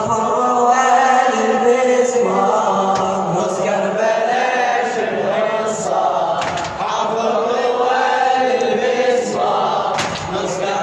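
A chorus of male voices chanting a slow, mournful Arabic lament, the layered refrain of an Iraqi Shia latmiya.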